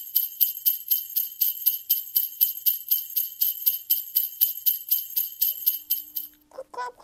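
Sleigh bells jingling in a steady rhythm, about five shakes a second. They stop near the end, when a tune of short pitched notes begins.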